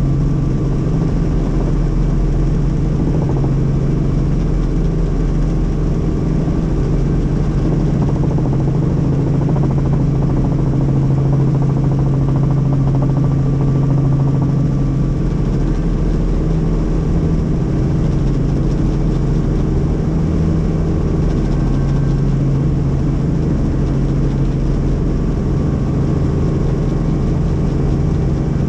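Helicopter in flight: its engine and rotor make a steady, unchanging drone with a strong low hum.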